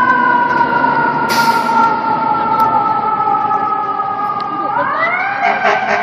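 FDNY fire engine's siren winding down slowly in pitch, then rising again near the end. A brief hiss sounds about a second and a half in.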